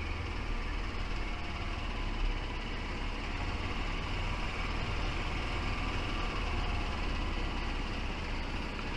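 Steady running noise of a vehicle driving slowly along a street, a constant low hum with no separate knocks or changes.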